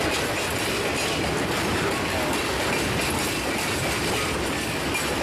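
Short-line freight train rolling along a branch-line track: a steady rumble and rattle of wheels on rail.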